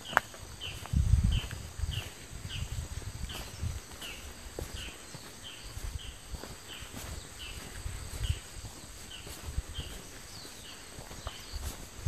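Footsteps walking on a forest trail: dull low thuds at a walking pace. Behind them, a short, high, falling chirp repeats about one and a half times a second.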